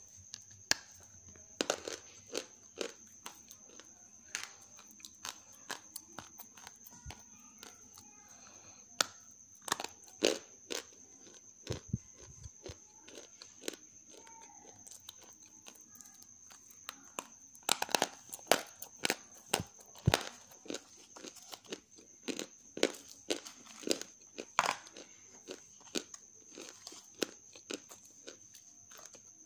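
Chunks of half-roasted grey clay snapped and crushed by hand in a plastic bowl: a run of sharp, dry crunches and cracks at an irregular pace. The clay is crisp from roasting. The crunches come thickest in two bursts in the second half.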